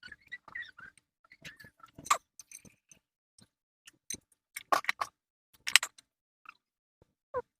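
Irregular small clicks, taps and knocks, with a few short scrapes, from hand work on a small electric kettle's parts; the sharpest knocks come about two seconds in and near the middle.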